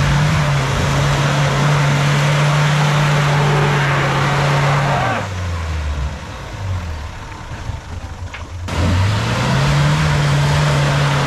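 Mitsubishi L200 pickup's engine revving hard under load as it climbs a steep mud slope. The revs rise and hold high, fall back and quieten about five seconds in, then climb again and hold from about nine seconds.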